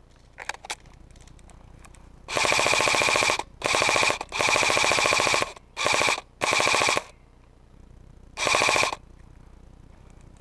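Airsoft electric gun firing on full auto, loud and close: six bursts of rapid mechanical rattle, the longest about a second, the last one coming after a short pause.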